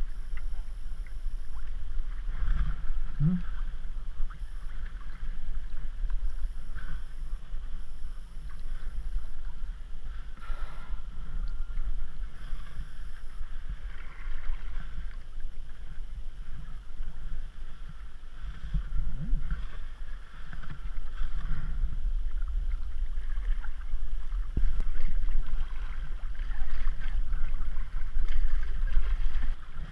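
Water lapping and splashing around a sea kayak as it is paddled through choppy water, over a steady low rumble of water and wind on the camera.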